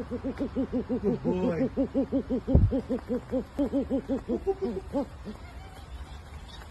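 Eurasian eagle-owl calling in a rapid run of short, low hoots, about five a second, that stops about five seconds in. There is a low thump about two and a half seconds in.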